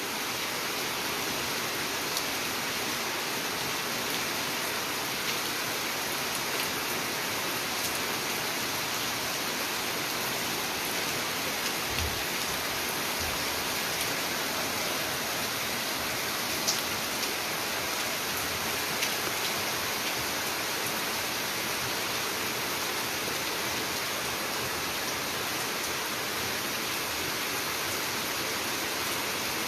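Steady rainfall, an even hiss of rain with a few sharper drops now and then.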